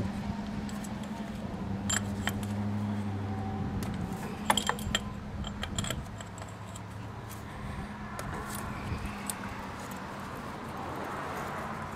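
Metal hand tools clinking and rattling against an outboard motor's powerhead, with irregular sharp clicks, a cluster about two seconds in and another near five seconds, over a low steady hum.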